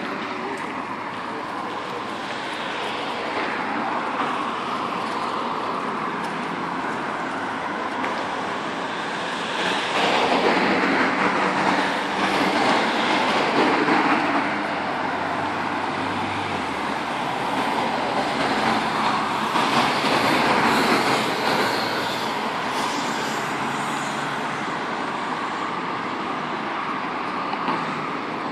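City street traffic: a steady wash of vehicle noise that swells twice as vehicles pass, about a third of the way in and again around two-thirds through, with a low engine hum in between.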